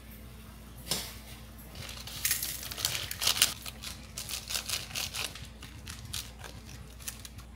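A single knock about a second in, then a quick, irregular run of clicks and clatters, like small hard objects being handled, for about five seconds.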